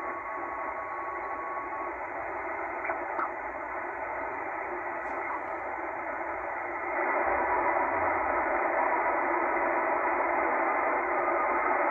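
Tecsun H-501X shortwave receiver hissing with band noise in upper-sideband mode as it is tuned across an empty stretch of the band. A steady whistle dies away about two seconds in, and the hiss gets louder about seven seconds in.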